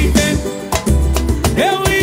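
Live samba band playing, with a heavy low bass beat under quick percussion hits. A voice sings briefly at the start and again near the end.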